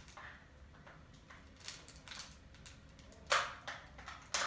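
A small screwdriver prying at a part to pop it open: scattered light clicks, then a louder snap a little after three seconds in and another near the end.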